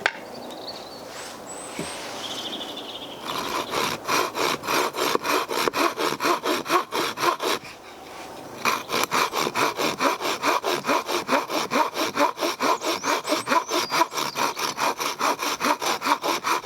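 A DeWalt reciprocating-saw blade fitted to a prototype bushcraft knife, worked by hand through hardwood: fast back-and-forth sawing strokes, about four a second. They start about three seconds in, pause briefly near the middle, then carry on.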